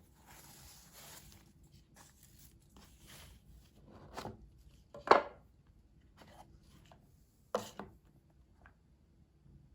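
Objects being handled: a soft rustle for about a second and a half, then a few sharp clacks, the loudest about five seconds in and another about two and a half seconds later.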